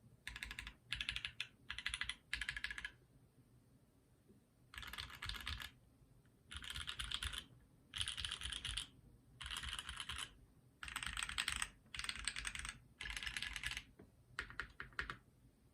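Typing on a Phantom 65% custom mechanical keyboard with lubed, filmed Banana Split linear switches, an aluminium plate and GMK keycaps: short bursts of rapid keystrokes separated by pauses, ending with a few single key presses.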